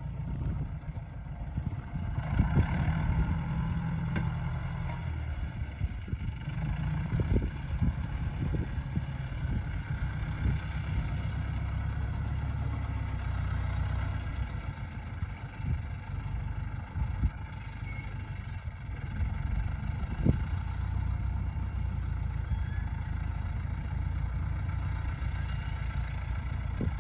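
Fortschritt ZT 323 tractor's six-cylinder diesel engine running steadily under the load of ploughing, a continuous low drone, with a few short knocks, the clearest about twenty seconds in.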